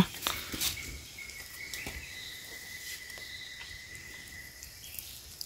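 A steady high-pitched insect drone, one held tone, with a few faint clicks and knocks over it.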